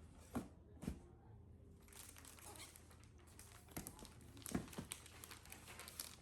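Plastic packaging crinkling as it is handled, with a few sharp clicks and taps among the rustle.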